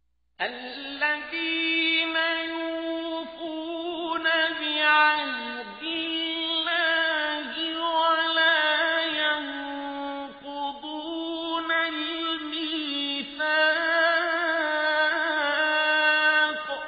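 A man's voice chanting a verse of the Quran in melodic tajweed recitation: one long phrase of drawn-out, wavering held notes that begins about half a second in.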